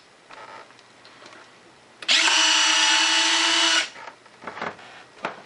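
Electric retractable landing gear on an RC jet cycling: a small geared motor whines at a steady pitch for just under two seconds, starting about two seconds in and cutting off sharply, followed by a few light clicks and knocks.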